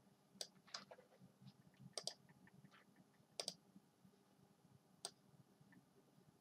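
Computer mouse clicking: a handful of short, sharp single clicks one to two seconds apart, two of them close together about two seconds in, against near silence.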